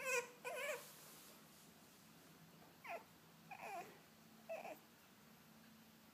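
French bulldog puppy whining in short, high cries: two in quick succession at the start, then three more a few seconds later, one of them sliding down in pitch.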